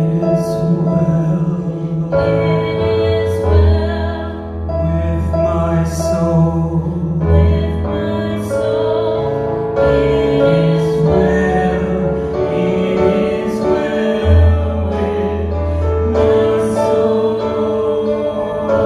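A worship song: singing over held chords and a bass line.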